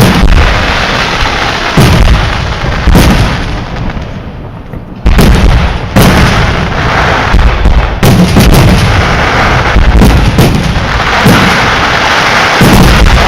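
Aerial fireworks shells bursting overhead: about a dozen loud booms in irregular succession, with a short lull about four seconds in.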